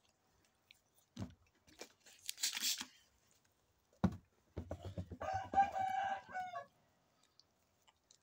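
A rooster crows once, a call of about two seconds starting about halfway in, its pitch falling at the end. Before it come two soft thumps and a brief rustling hiss.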